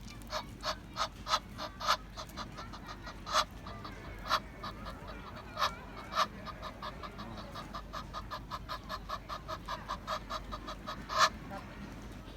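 Egyptian goose honking: a long run of short, harsh calls, speeding up into an even series of about four a second in the middle, with a few louder single honks standing out.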